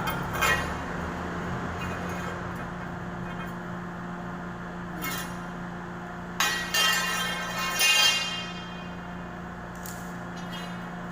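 Metal clinking and ringing: a few sharp strikes about half a second in, twice near six and a half seconds, and loudest around eight seconds, over a steady low hum.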